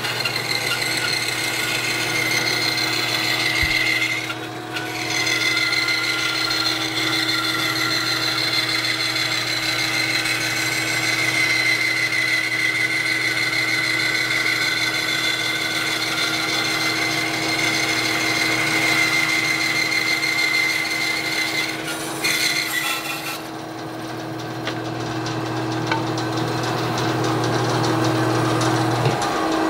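Bandsaw resawing the front off a wooden drawer: the blade cuts steadily through the wood for about 22 seconds, with a short break about 4 seconds in. Then the cutting noise stops and only the saw's motor hum remains, which stops shortly before the end.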